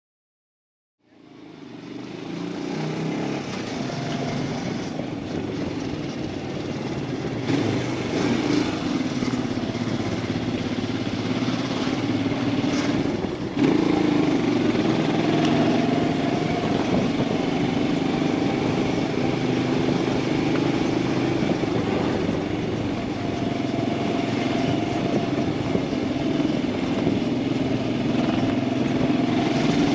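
Royal Enfield Himalayan 411's single-cylinder engine running as the motorcycle is ridden, with road and wind noise. The sound fades in about a second in and gets louder from about halfway through.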